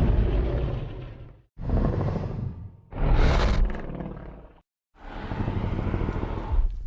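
Godzilla roar sound effects: four roars in a row, each about one and a half to two seconds long, with brief gaps between them. The third roar rises higher partway through.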